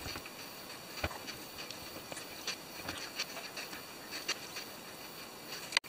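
Scattered light clicks and taps of hands handling small parts (wires, the XT60 power lead and the flight-controller stack) over a steady faint hiss.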